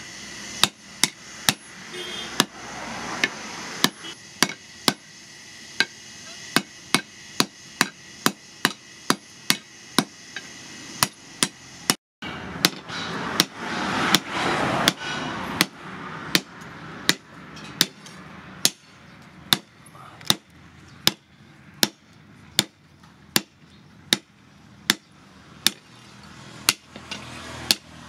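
Hand hammer striking leaf-spring steel in steady, repeated blows, roughly two a second, each with a short metallic ring, as a machete blade is forged.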